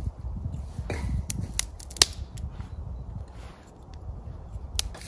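A fire starter being struck over a tinder bundle to light it: a handful of sharp, short scrapes, the loudest about two seconds in, as the tinder catches. A low rumble runs underneath.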